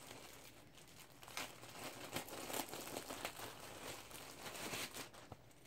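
Plastic packaging bag crinkling faintly as it is handled and opened, in irregular crackles from about a second in until near the end.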